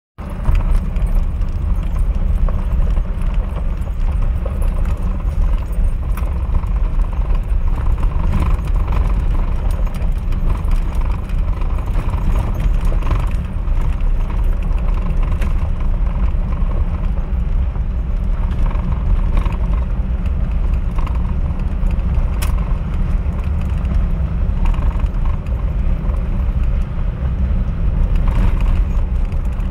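A vehicle driving along a gravel road, heard from inside: a steady low rumble of tyres and engine, with occasional small clicks and rattles.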